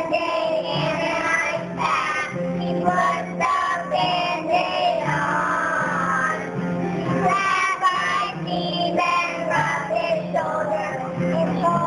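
A group of young children singing a song together, with an instrumental accompaniment playing a bass line under their voices.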